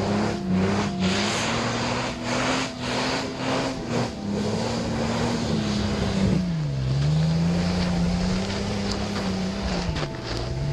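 Off-road 4x4's engine revving hard as it ploughs through deep snow, its pitch rising and falling and dropping sharply twice, about six seconds in and again near the end. A rushing hiss runs underneath, gusty in the first few seconds.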